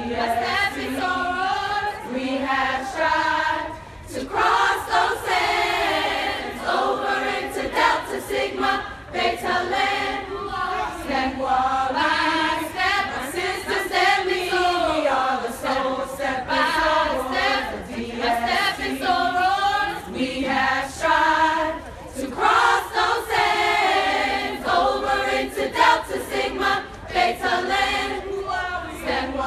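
A large group of women singing a sorority song together a cappella, many voices carrying one melody.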